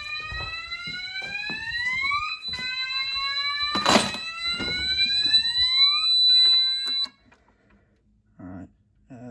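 Electronic fire alarm sounder sounding a repeated rising sweep tone, each sweep about two seconds long, over a steady high-pitched beep, with a sharp knock about four seconds in. It is in alarm from a device test and cuts off abruptly about seven seconds in as the panel is reset.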